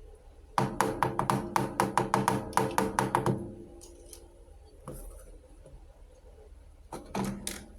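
Small plastic toy kitchen pieces tapping and clattering together as they are handled: a quick run of sharp taps for about three seconds, a single click, then a short burst near the end.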